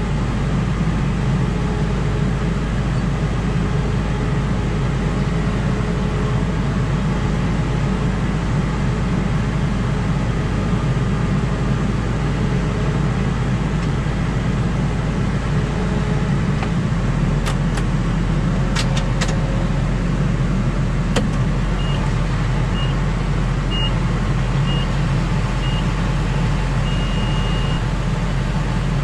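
Tractor engine running steadily, heard from inside the cab. A few sharp clicks come just past the middle, then a run of short high beeps near the end, the last one longer.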